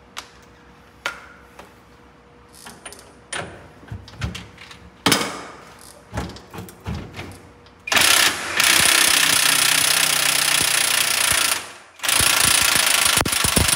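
Loose metal clinks and knocks of tools being handled, then a pneumatic air hammer running hard in two long bursts with a brief break between them, driving out the bus's front-axle kingpin now that it has started to move.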